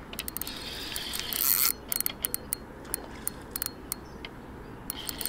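Spinning reel wound in against a hooked carp on a bent rod: the reel whirs, then clicks in irregular runs of sharp ticks.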